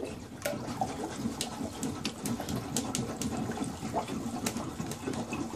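Rubber plunger worked rapidly up and down in a blocked toilet bowl, the water sloshing and splashing continuously with small sharp slaps, to clear the blockage.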